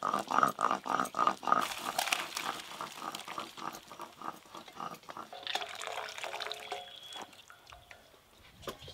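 Boiled young jackfruit and its cooking water poured from a metal pot into a wicker basket to drain. A quick run of glugging pulses, about five a second, comes with splashing, then fades to scattered drips and clicks.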